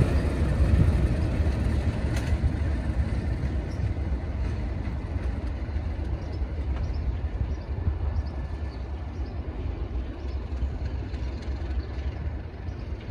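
Class 37 diesel locomotives and their test-train coaches moving away. The deep rumble of the English Electric V12 engines and the wheels fades steadily as the train recedes, with a sharp click about two seconds in.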